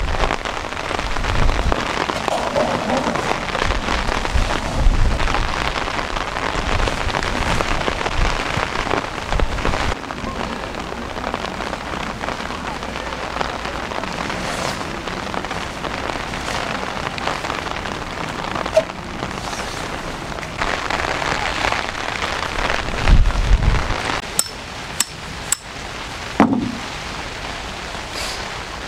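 Heavy rain falling steadily, with low gusty rumbles of wind at times. A few sharp knocks about twenty-five seconds in.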